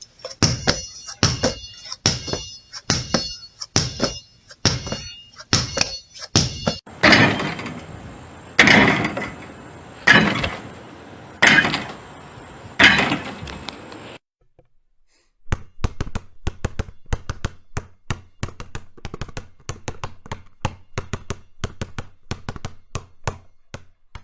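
Basketball bouncing on a hard floor in three runs: steady dribbling about one and a half bounces a second, then slower, louder bounces with an echoing tail, then after a short gap a quicker run of lighter bounces.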